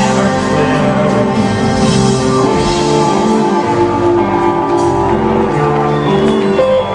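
Rock band playing live, with pitched instruments holding steady chords and the music running at an even loud level.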